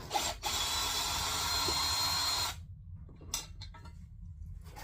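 Cordless drill-driver with a hex bit running for about two seconds, backing out a screw, then stopping abruptly, with a click before it and a knock after.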